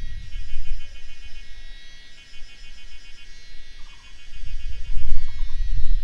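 Mountain nature ambience: insects calling in rapid, repeated pulsed chirps, over a low gusty rumble that dies down in the middle and swells again near the end.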